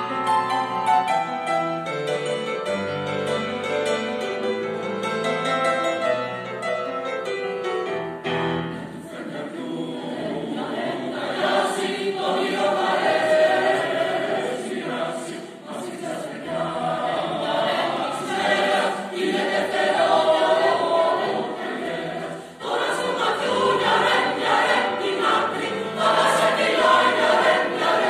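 Grand piano playing alone for the first eight seconds or so, then a choir comes in singing with the piano accompaniment.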